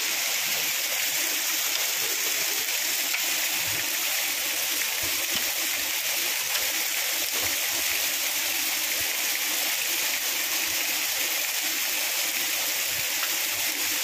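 Waterfall rushing, a steady, unbroken roar of falling water.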